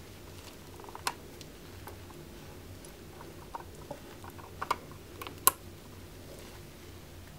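Scattered small plastic clicks and handling noise as an RJ45 Ethernet plug is pushed into the port of a portable IP-camera test monitor, the sharpest click about five and a half seconds in as the plug goes home.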